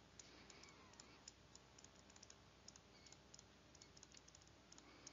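Near silence, with faint, irregular small ticks and scratches of a stylus writing on a tablet screen.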